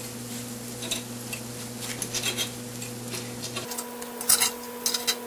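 Metal forks clicking and scraping on a hot cast iron pan as squash slices are flipped over one by one, the clicks coming in irregular bunches and thickening near the end. A steady low hum runs underneath, its lowest part dropping out a little past halfway.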